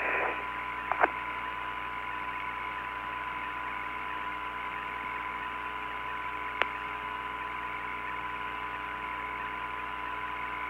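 Steady hiss and a faint steady hum-like tone of the Apollo 17 air-to-ground radio channel between transmissions, with a brief crackling click about a second in and another short click past the middle.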